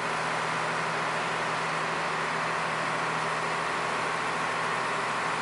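Ferry's engine running steadily: an even drone with a constant low hum that does not change in pitch or level.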